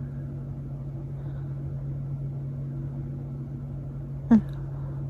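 A steady low hum of a room appliance runs throughout. About four seconds in it is cut by one short, sudden vocal sound from the throat, a vocal tic coming on as she falls asleep.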